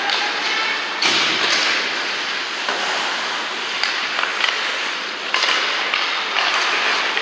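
Ice hockey play: skates scraping the ice, with sticks and puck clacking now and then and a few brief shouts.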